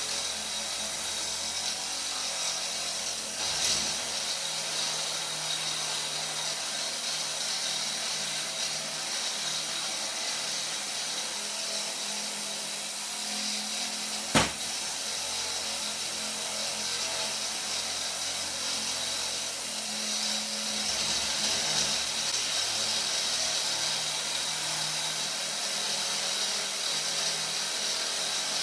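Model of Hero's steam engine (aeolipile) running: a steady hiss of steam from its spinning jets over a gas burner, with a low mechanical hum. About halfway through, a single sharp click as the worm-gear engaging lever is worked.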